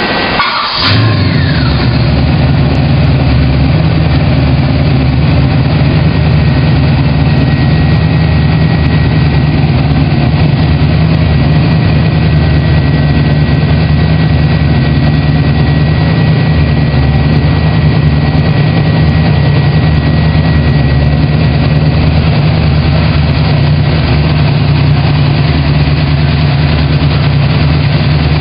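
A 427 hp Ford 351 Windsor V8 crate engine on a run stand is cranked by its starter, catches about a second in, and then runs at a steady idle.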